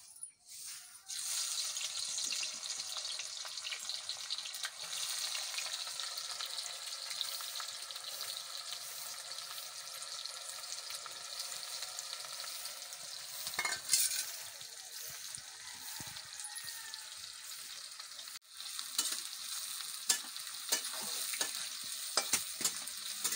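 Sliced onions dropped into hot oil in a metal kadai, sizzling with a sudden start about a second in and then a steady frying hiss. There is one sharp knock about midway, and near the end a spatula stirs the onions with short clicks and scrapes against the pan.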